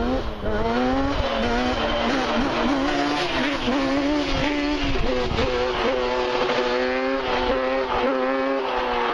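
Yamaha Banshee quad's twin-cylinder two-stroke engine revving hard as it wheelies and accelerates away, its pitch climbing and dipping through shifts in the first two seconds, then holding a steady high note.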